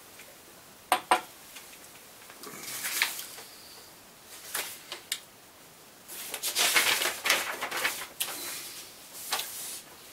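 A whisky tasting glass clicks twice on a stone countertop about a second in as it is set down. Sheets of paper are then handled and rustled, most busily from about six to eight seconds in.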